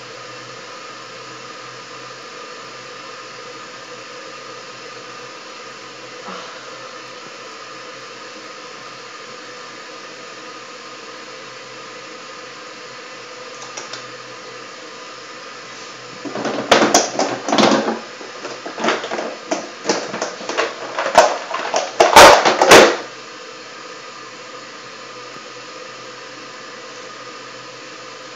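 A small electric appliance motor runs with a steady hum. From about 16 to 23 seconds in, several loud, irregular bursts of noise break over it.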